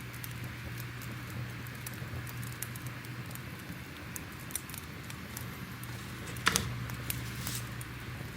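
Fire crackling: scattered sharp pops over a steady hiss, with one louder pop about six and a half seconds in.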